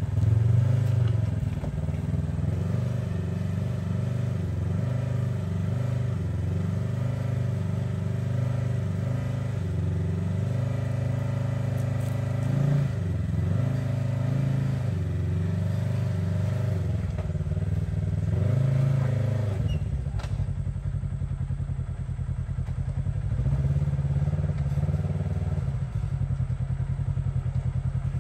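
Side-by-side UTV engine running while crawling over rock ledges, its pitch rising and falling with the throttle. About twenty seconds in it drops to a slower, pulsing note.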